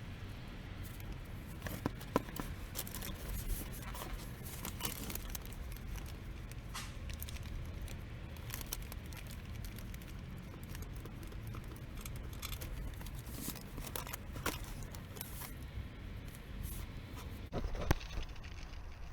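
Scattered small clicks, taps and rustling of objects being handled, over a low steady hum; two sharper knocks, one about two seconds in and one near the end.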